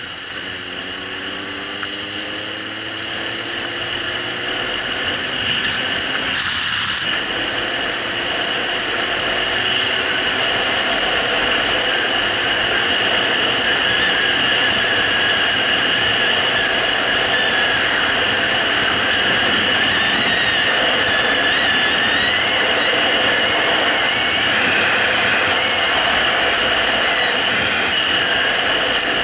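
Suzuki GSR750's inline-four engine climbing in revs as the motorcycle accelerates, with a short break about six seconds in, under a rush of wind noise that grows louder and then holds steady at speed.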